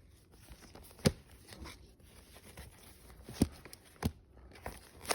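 Vinyl record sleeves being handled: faint sliding and rustling of cardboard, with a few sharp knocks, the loudest about a second in and another about three and a half seconds in.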